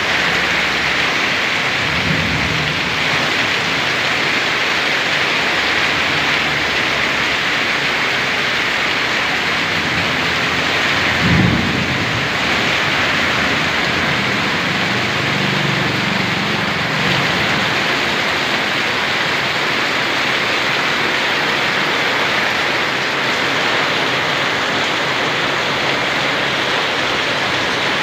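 Steady hiss of heavy rain, with low rumbles of thunder; the strongest rumble comes about eleven seconds in.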